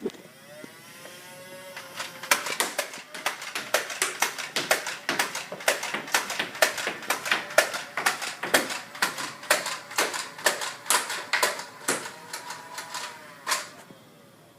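Motorised Nerf dart blaster: a motor whine rises for about two seconds, then a long rapid string of dart shots follows for about eleven seconds, roughly fifteen darts, and the whine falls away near the end.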